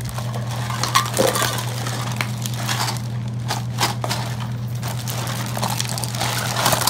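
A clear plastic bag crinkling and rustling while hollow plastic toy fruit and food are pulled and tipped out of it. The toys clatter with many quick clicks and knocks against each other and the wooden floor.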